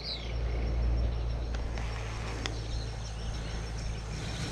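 Quiet outdoor ambience: a low steady rumble with a faint high steady insect drone, one short bird chirp right at the start, and a couple of faint ticks in the middle.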